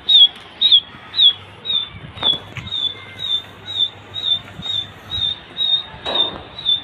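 A small animal's high-pitched chirp, repeated evenly about twice a second, each note short and slightly falling.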